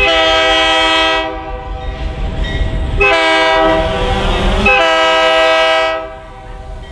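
Locomotive air horn sounding a chord of several tones in blasts: one at the start lasting about a second, then after a pause a longer one of about three seconds, over the low rumble of the train.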